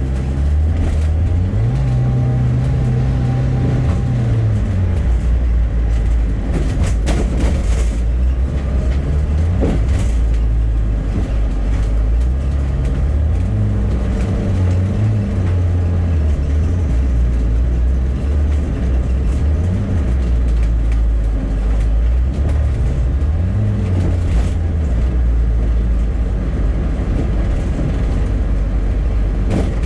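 Bus engine and road noise heard from inside the cabin. The engine note climbs and drops several times as the bus pulls away and slows in traffic, with a few short knocks or rattles about seven, ten and twenty-four seconds in.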